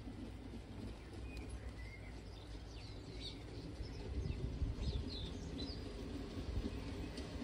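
Small birds chirping with short, scattered calls over a low outdoor rumble that grows louder about halfway through.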